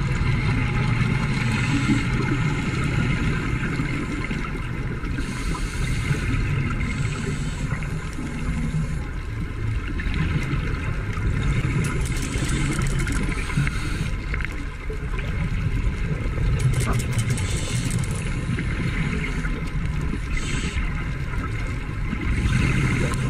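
Underwater ambience through a camera's housing: a steady low drone, with bursts of bubbly hiss every few seconds.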